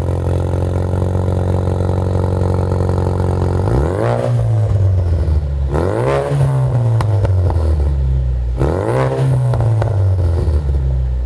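Ford Mustang EcoBoost's turbocharged 2.3-litre four-cylinder running through an un-catted stainless MRT off-road turbo-back exhaust: idling, then revved three times, each rev rising and falling back to idle. A loud, aggressive turbo four-cylinder sound.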